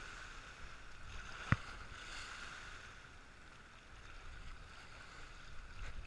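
Lake water splashing and washing against a concrete shore wall, churned by a hooked fish close in. One sharp click about a second and a half in.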